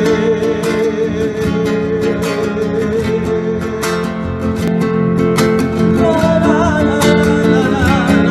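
Solo acoustic guitar playing an instrumental passage of a slow song, chords and picked notes ringing steadily.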